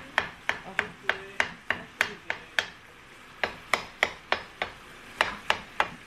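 Metal spatula chopping and breaking up ground beef as it browns in a skillet: sharp taps of the blade on the pan, about three a second, with a brief pause near the middle.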